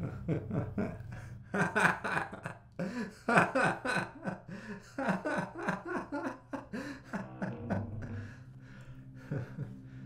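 A man laughing: a long run of short rhythmic 'ha' bursts that swells early on and dies away near the end, over a low steady drone.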